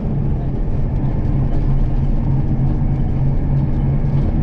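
Bus running along the road, heard from inside the cabin: a steady low engine hum over road rumble.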